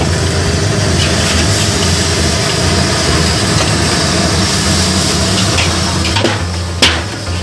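Steady roar of a high-pressure gas wok burner under a steel wok, with a metal spatula scraping and tossing rice in the wok. A single sharp clang of metal on the wok comes near the end.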